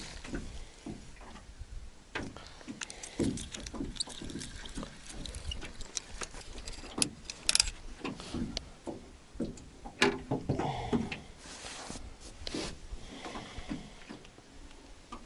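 Irregular handling noises: scattered clicks, light knocks and rustling, with the sharpest knocks about seven and ten seconds in.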